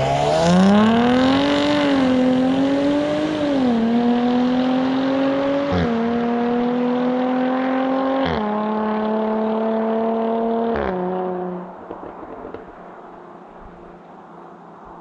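Sports car engine accelerating hard from a standstill under full throttle. Its pitch climbs steeply, then keeps rising more slowly through several quick automatic upshifts about two seconds apart. Near the end the driver lifts off and the engine drops to a much quieter, lower steady drone.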